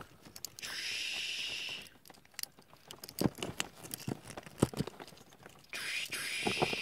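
Small hard-plastic parts of a Takara Rockman EXE Blues Soul action figure clicking and scraping as they are pulled off and fitted together, with two rustles about a second long, one near the start and one near the end.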